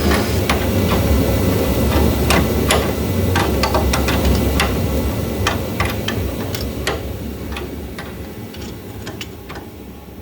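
Irregular metallic clanks and taps of tools on car suspension parts over a steady low rumble, fading out gradually over the last few seconds.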